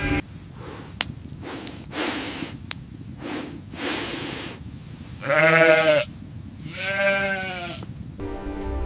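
A sheep or goat from the herd bleating twice: a long, loud call about five seconds in and a shorter one about a second later, after a few soft rustles and clicks.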